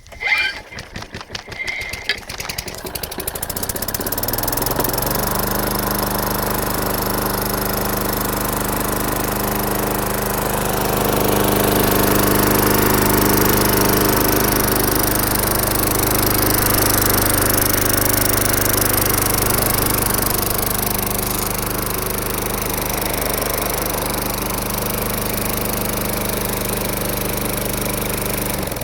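185 cc Tecumseh lawn mower engine sputtering unevenly for the first few seconds, then settling into steady running, freshly fitted with a new carburetor seal. It runs louder and faster through the middle, then cuts off suddenly at the end.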